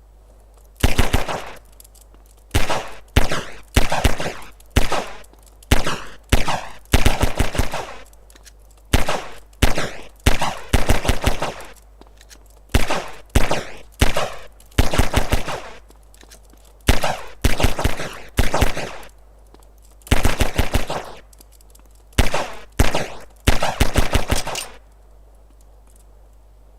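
A gun firing on full automatic in short bursts: about seventeen quick strings of rapid shots with brief pauses between them, stopping near the end.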